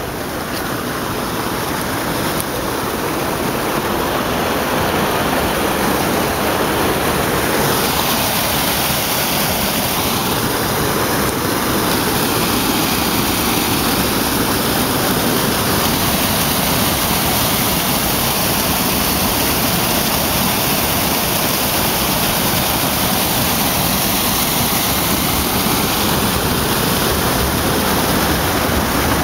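Garden waterfall running into a pond: a loud, steady rush of falling and churning water, growing a little louder over the first few seconds.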